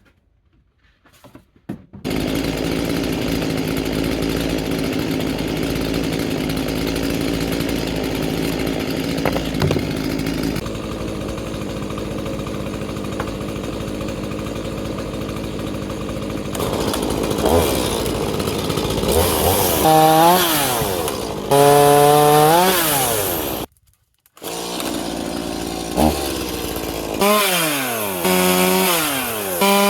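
Gas chainsaw running: it starts about two seconds in and runs steadily, then from about halfway revs up and down again and again. It drops out suddenly for a moment near the end before revving again.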